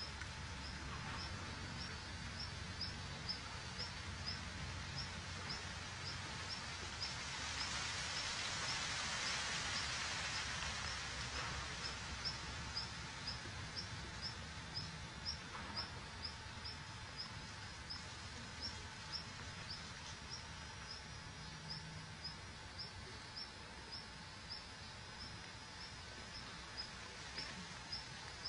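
Outdoor garden background with an evenly repeated short, high chirp, a little faster than once a second, that keeps a steady rhythm throughout. A louder stretch of hiss swells and fades about a third of the way in.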